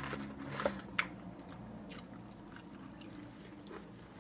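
Close-up eating sounds from sauced barbecue ribs, with two sharp clicks in the first second and then faint small ticks.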